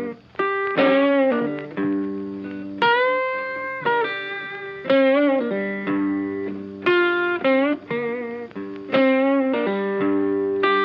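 Background music: a guitar melody of separate held notes, each starting sharply and several wavering or bending in pitch.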